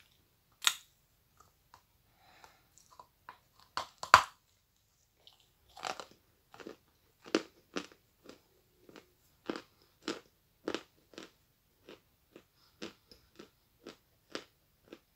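A mouthful of natural Stary Oskol eating chalk being bitten and chewed. There is a sharp crunch under a second in and a louder bite at about four seconds, then steady chewing crunches about twice a second.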